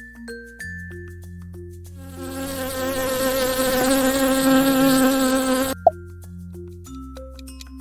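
A flying insect's buzz, a steady drone that comes in about two seconds in and cuts off suddenly a little before six seconds, over soft background music.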